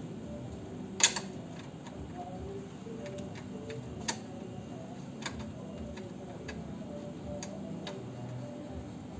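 Scattered sharp clicks and taps of a bolt and metal horn-mounting hardware being handled and tried for fit. The loudest click comes about a second in.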